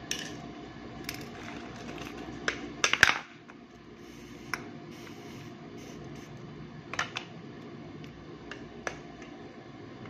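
Scattered clicks and taps of small hard objects, a plastic device panel and hand tools, being picked up and set down on a desk, loudest in a quick cluster about three seconds in.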